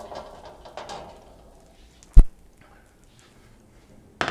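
A single loud, sharp knock about two seconds in, followed by a shorter clatter near the end.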